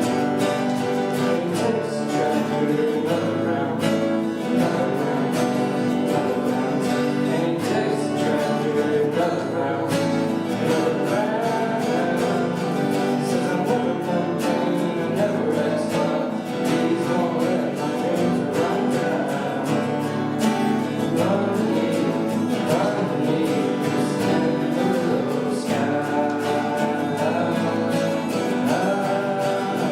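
Acoustic guitar strummed and picked in a steady rhythm, playing a song live.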